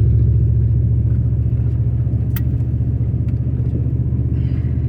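Steady low rumble of a four-wheel-drive vehicle's engine and tyres on a snow-covered road, heard from inside the cabin. A single sharp click comes about two and a half seconds in.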